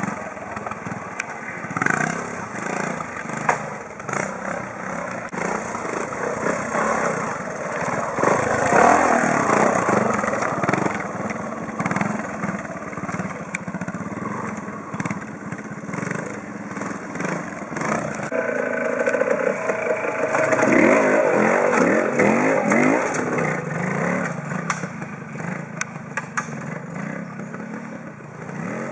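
Classic trials motorcycle engines running and being blipped as riders climb rocky sections, in uneven bursts of throttle rather than a steady run. About two-thirds of the way through, the revs rise and fall repeatedly.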